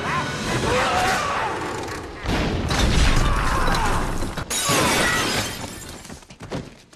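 Movie sword-fight sound effects with no music: a run of clashing, crashing impacts mixed with shouts, loudest in the middle. It dies away sharply near the end.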